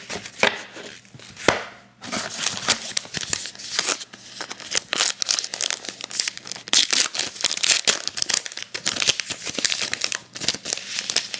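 Trading-card pack wrapper being torn open and crinkled: a few sharp ticks at first, then from about two seconds in a continuous crackly rustle full of small clicks.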